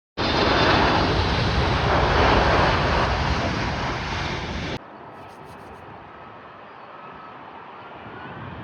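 Boeing 747 cargo jet's engines rumbling loud as it passes low overhead on approach. About five seconds in, the sound cuts off abruptly to a much quieter, steadier jet noise, which grows slightly louder near the end.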